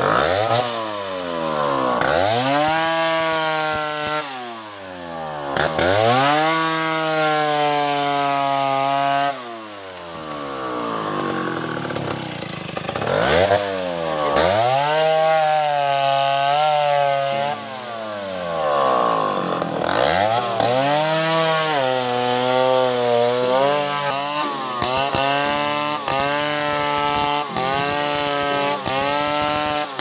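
Chainsaw cutting through the trunk of a fallen durian tree: the engine revs climb, hold and drop back several times as it cuts and eases off, and in the last third the revs blip up and down in quick succession.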